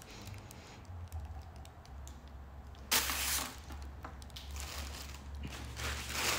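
Plastic wrapping and figure pieces being handled: light clicks and taps, then crinkling plastic wrap in a short rush about three seconds in and again near the end.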